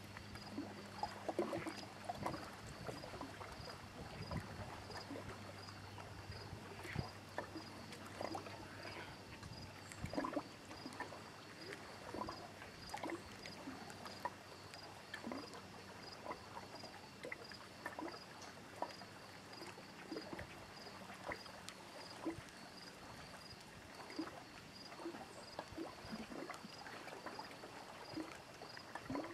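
Small waves lapping irregularly against the shore and dock, while an insect chirps steadily at an even rate in the background.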